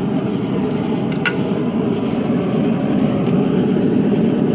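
Flame-fed forge furnace running steadily, a constant deep rushing noise of burner flame and air, with one short click about a second in.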